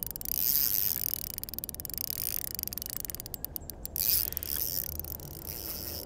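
Spinning reel being wound in while a hooked fish is played on the line, with a quick run of ticks a little past three seconds in.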